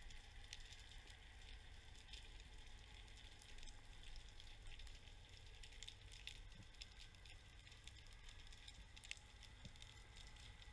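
Near silence: faint underwater ambience, a low rumble with sparse crackling clicks scattered through, one sharper tick about nine seconds in.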